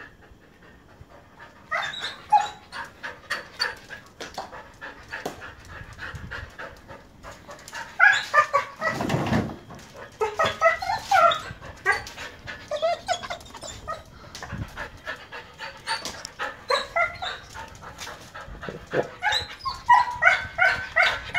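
Siberian husky whining and yipping in many short repeated calls, loudest about eight seconds in and again near the end.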